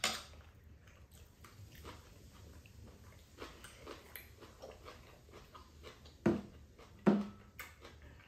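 Close-up eating sounds: chewing and small wet mouth clicks, with a sharp click at the start. Two louder gulps come about six and seven seconds in as water is drunk from a bowl.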